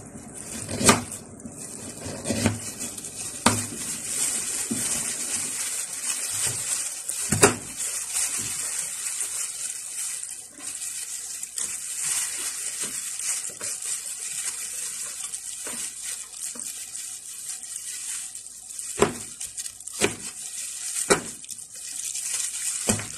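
Kitchen knife cutting carrots on a cutting board: scattered sharp knocks as the blade strikes the board, over a steady hiss.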